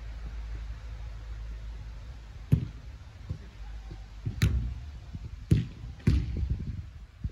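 Footballs being kicked and struck on an artificial pitch: four sharp thumps in the second half, over a steady low rumble.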